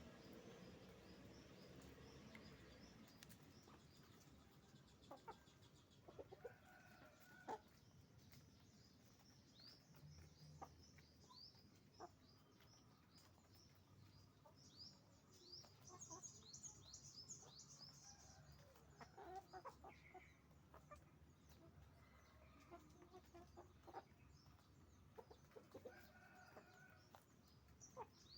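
Chickens clucking faintly, with short calls and clicks scattered throughout. A run of quick high chirps comes about halfway through.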